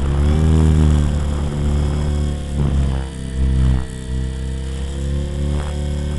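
Blade 400 electric RC helicopter in flight, heard close up from its tail: a steady whine of the motor, gears and spinning rotor blades, its pitch shifting as the head speed changes, with a few short rushes of blade and wind noise as it manoeuvres.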